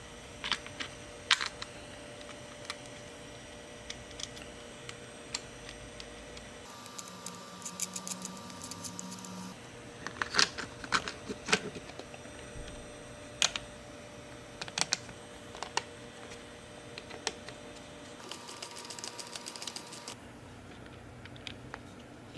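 Irregular sharp clicks and taps of hard objects, with two short spells of faster clicking over a faint steady hum, one about seven seconds in and one near the end.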